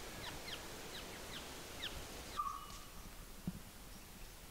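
Wild birds calling in woodland: a run of five or six short, high chirps, each falling in pitch, over the first two seconds, then a single short lower note, all faint over a light background hiss.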